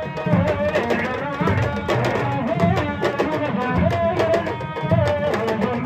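Ensemble of Senegalese sabar drums playing a dense, fast rhythm of sharp strokes, with a wavering high melody line over it.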